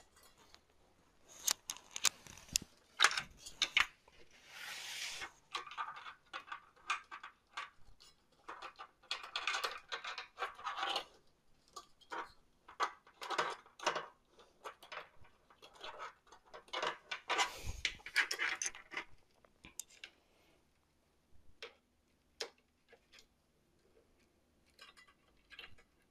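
Irregular clicks, light rattles and scratchy rubbing of metal and plastic as a 120 mm fan is fitted onto a Thermalright Assassin X 120R SE V2 tower CPU cooler with its wire fan clips. The clicks thin out and grow quieter about two thirds of the way through.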